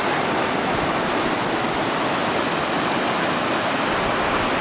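Steady rushing of fast-flowing water.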